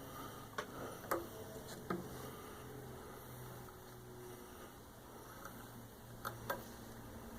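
A few light clicks and taps, as from handling the sewing machine and cloth, over a faint steady low hum.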